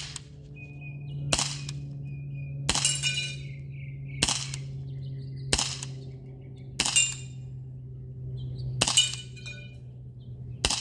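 CZ 75 P-07 non-blowback CO2 airsoft pistol fired about eight times at a steady pace, a sharp pop every second and a half or so, several followed by a brief ringing clink. A steady low hum runs underneath.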